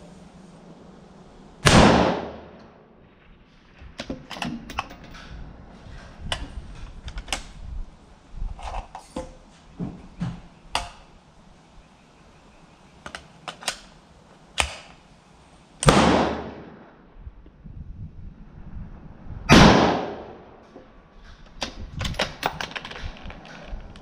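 Three shots from a Black Creek Labs Bison MRX semi-automatic rifle in .223, about 2 s, 16 s and 20 s in, each with a short echo under the range's metal roof. Many smaller metallic clicks and knocks of rifle handling fall between them.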